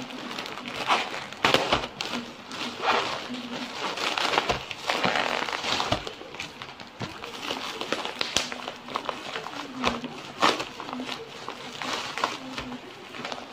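A plastic courier mailer bag and black bubble wrap being pulled open and crumpled by hand: continuous crinkling with many irregular sharp crackles.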